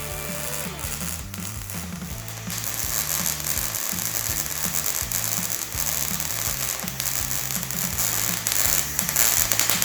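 MIG welder arc crackling and sputtering on painted scrap sheet metal, coming on strongly about two and a half seconds in. The arc is skipping because paint and dirt on the metal burn off under it. Background music with a steady bass line runs underneath.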